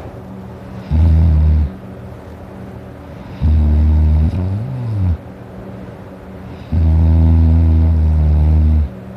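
A man snoring loudly in his sleep: three deep snores, the first short, the second wavering in pitch near its end, the third the longest, with quieter spells between them.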